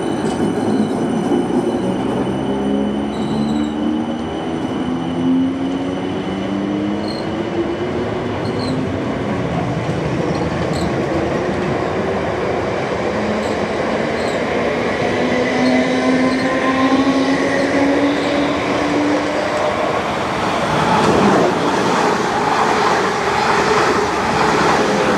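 Electric multiple unit train moving off with its traction motors whining in tones that rise slowly in pitch as it gathers speed. The rumble of the wheels on the rails grows louder over the last few seconds.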